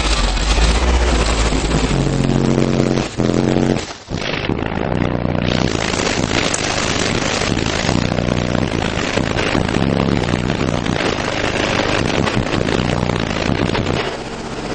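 Four Digital Designs 9515 15-inch subwoofers in a ported 14 cu ft box tuned to 39 Hz, driven by a Kicker ZX2500.1 at 1 ohm, playing a bass-heavy track at very high volume and heard from outside the car. The recording is heavily distorted and dense, with a brief dropout about four seconds in.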